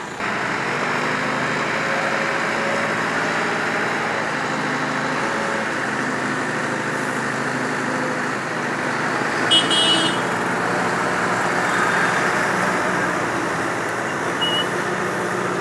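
Vehicle engine running steadily over roadway traffic noise, with a brief high-pitched horn toot about nine and a half seconds in.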